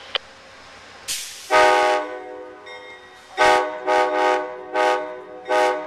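Amtrak P42 diesel locomotive's air horn sounding as the train departs, after a brief hiss of air. It gives one blast of about half a second, then five short toots on the same chord.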